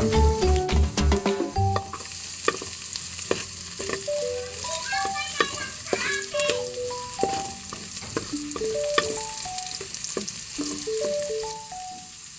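Food sizzling in hot oil in a pan, with scattered clicks of a utensil stirring against the pan. Background music with a simple stepping melody plays over it; a bass beat drops out about a second and a half in.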